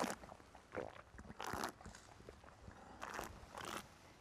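Faint, short slurping hisses, several in a row about a second apart, as a wine taster draws air through a mouthful of red wine to aerate it.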